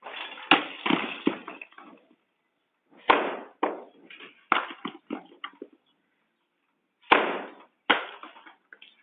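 An irregular series of sharp knocks and bangs, in clusters with short pauses between, each hit fading quickly, as in building or demolition work.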